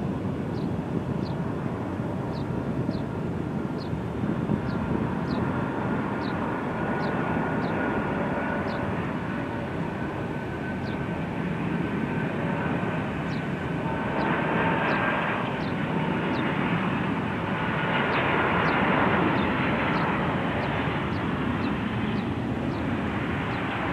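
Boeing 747-400's four turbofan engines on final approach to land: a steady jet noise with a faint high whine. It grows louder in the last third as the airliner nears and flares over the runway.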